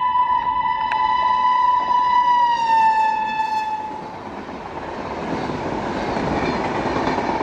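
Locomotive horn of a passing express train, one long steady tone whose pitch drops slightly as the train goes by, cutting off about four seconds in. After it comes the rushing noise of the coaches passing at speed, growing louder.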